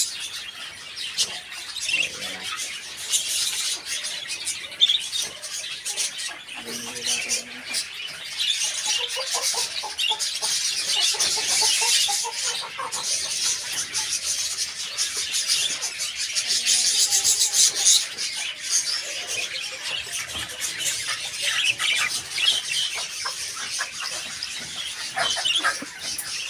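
A large flock of caged lovebirds chattering: a dense, unbroken run of high-pitched chirps and squeaks.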